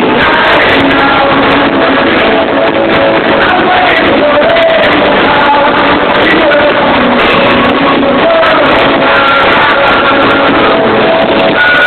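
Rock song with a sung vocal line over guitars, playing loud and steady. It sounds dull and cut off at the top, as recorded on a phone.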